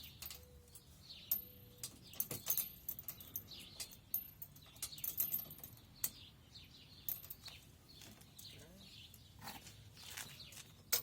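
Scattered metal clicks and clinks as a breakaway brake cable is fastened onto a tow bar's safety chain, with birds chirping in the background.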